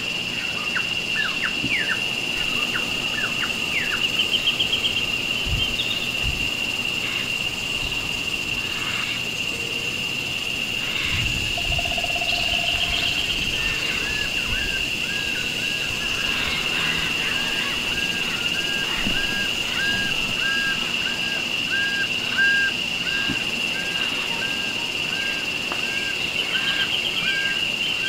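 Tropical forest ambience: a steady high-pitched insect drone runs throughout, with birds calling over it. There are short descending whistles near the start, a few brief trills, and in the second half a bird repeating the same short note about one and a half times a second.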